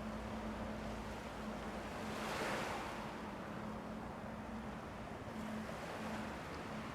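Sea waves washing onto a beach, with one wave breaking about two and a half seconds in. A faint steady hum sits underneath.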